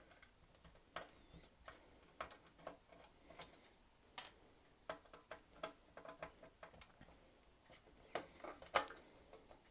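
Hand screwdriver backing T10 Torx screws out of an Xbox 360's metal chassis: quiet, irregular light clicks and taps of the bit and loosened screws, coming a little faster near the end.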